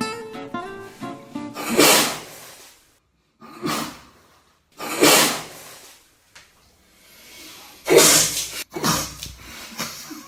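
A man sneezing hard several times, with sharp noisy breaths, in five short bursts over about eight seconds; the loudest come about two seconds in and near the end.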